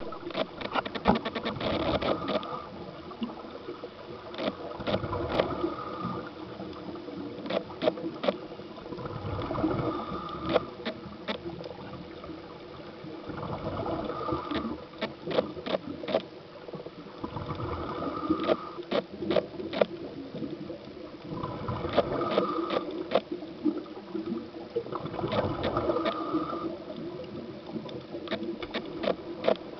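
Scuba diver's breathing heard underwater: a swell of exhaled regulator bubbles gurgling and rumbling about every four seconds, with many sharp clicks and crackles scattered throughout.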